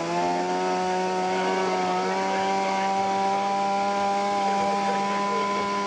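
Gas-powered handheld saw running at steady high revs while cutting through wooden deck planks. Its engine note rises a little at the start, then holds steady.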